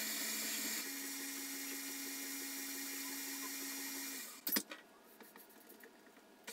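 Electric stand mixer running, beating an egg into cake batter. The motor changes note about a second in, stops after about four seconds, and is followed by a couple of sharp knocks.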